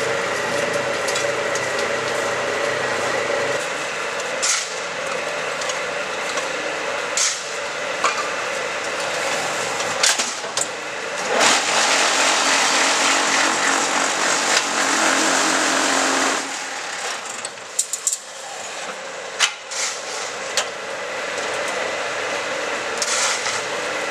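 QTJ4-26A concrete block-making machine working. A steady motor hum for the first few seconds gives way to scattered knocks and clanks, with a loud continuous rattle lasting about five seconds in the middle and several sharp knocks after it.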